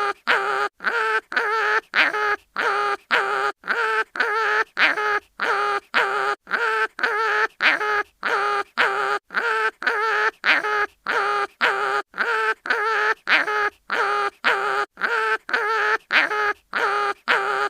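Cartoon animal pain-cry sound effect: a short pitched cry repeated over and over, about twice a second, without a break.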